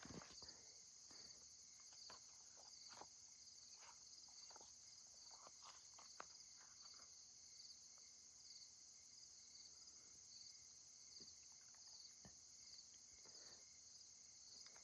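Faint, steady chorus of night crickets, a high fast-pulsing trill that never stops, with a few soft scattered ticks.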